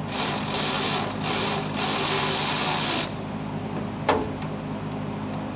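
Ratchet wrench with a socket spinning a bracket bolt in, its pawl buzzing in four quick strokes over the first three seconds, then a single sharp click about four seconds in.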